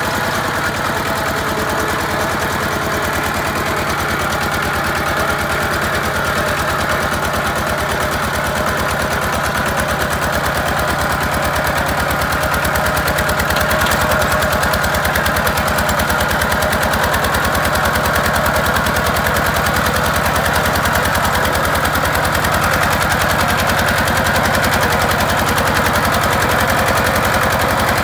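Kubota two-wheel walking tractor's single-cylinder diesel engine running under way, a fast, even chugging of firing strokes that grows a little louder about halfway through.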